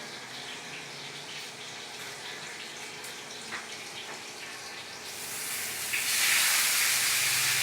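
Daing na bangus (dried milkfish) frying in hot oil in a pan: a faint sizzle with a few small ticks, then a loud sizzle that swells up about five to six seconds in.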